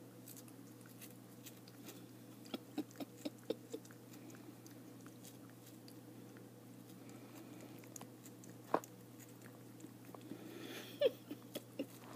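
Cat biting and chewing a sticky caramel apple slice: short wet clicks and crunches, a quick run of about six a few seconds in, a single sharper one near the middle and another cluster near the end, over a faint steady low hum.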